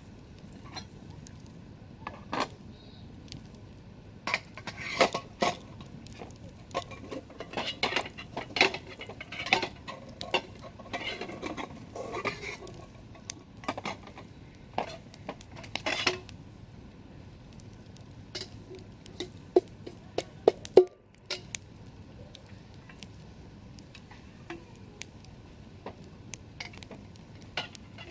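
Campfire crackling: burning wood giving off irregular sharp pops over a low hiss, thickest in the first half and sparser later, with one loud pop about twenty seconds in.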